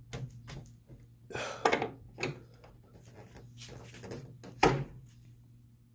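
Scattered clicks and knocks of hands and a tool working at the car's hood bolts, with one louder knock near the end, over a steady low hum.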